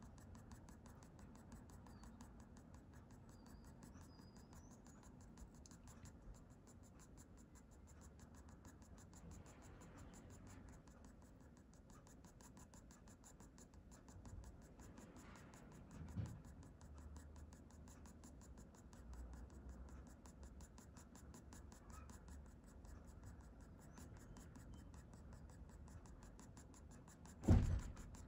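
Faint scratching of a graphite pencil on drawing paper as short strokes of fur are shaded in. A thump comes about halfway, and a much louder one shortly before the end.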